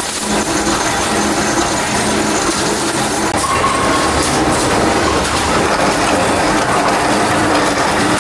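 Metalworking machines running, with a power press stamping aluminium discs into kettle parts: a loud, steady, dense mechanical clatter.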